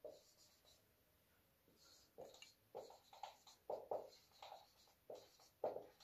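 Marker pen writing on a whiteboard: a quick run of faint, short strokes that starts about two seconds in.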